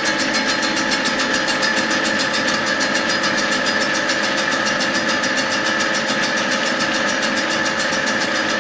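A grinding machine's abrasive wheel grinding down the weld built up on a rotating bus wheel hub, a steady grinding with a held whine. This is the finishing cut on the welded-up wheel seat, restoring the seat that was worn when the wheel nuts worked loose.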